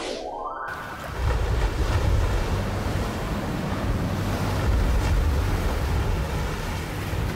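Storm at sea: waves surging and wind blowing, with a heavy low rumble underneath. A short rising tone sweeps up in the first moment as the scene changes.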